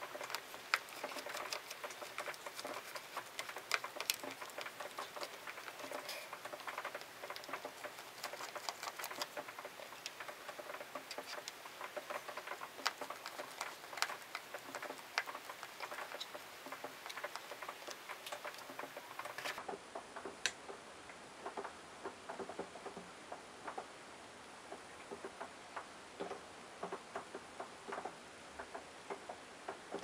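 Rapid, irregular small clicks and ticks, many a second, thinning out after about twenty seconds.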